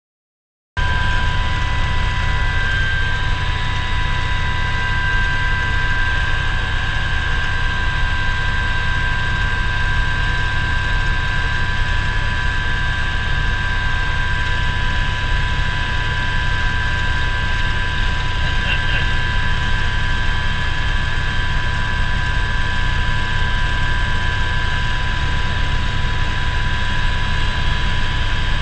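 Aérospatiale Alouette II helicopter in flight, heard from inside the cockpit: a steady turbine whine with several high tones over the low rumble of the rotor and engine. It cuts in suddenly about a second in, after a moment of silence.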